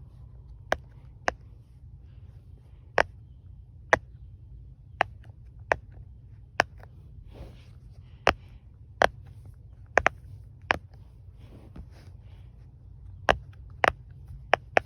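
Pop-it fidget toy being popped: a series of sharp single pops at irregular intervals, about one a second, over a faint steady low hum.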